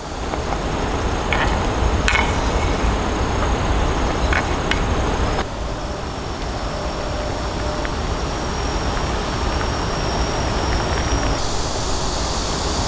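Outdoor background sound: a steady high insect buzz over a low rumble, with a few faint clicks in the first half. The background shifts abruptly twice, about five and eleven seconds in.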